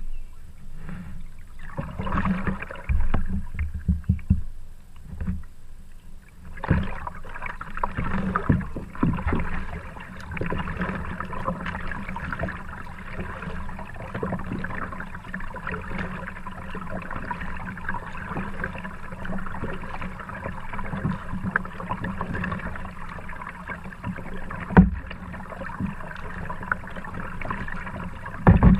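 Kayak being paddled on a calm river: paddle strokes and water washing along the hull. It is uneven with several knocks for the first few seconds, then a steady wash from about seven seconds in, with a sharp knock near the end.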